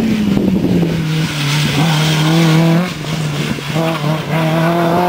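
Rally car engine running hard through a corner. Its pitch drops in the first second as the car slows, holds steady, breaks briefly twice about three to four seconds in, then climbs a little as the car pulls away.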